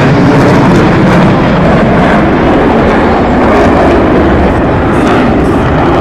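Loud, steady jet noise from a formation of USAF fighter jets passing over.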